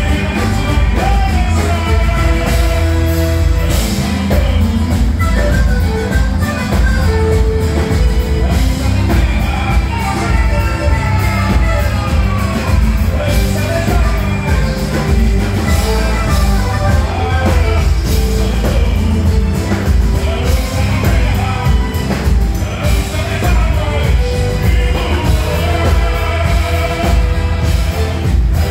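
Live band playing a boi-bumbá toada, with a male lead singer over heavy bass and driving percussion.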